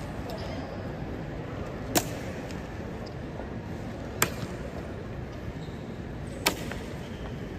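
Three sharp clacks, evenly spaced about two seconds apart, over a steady low background noise.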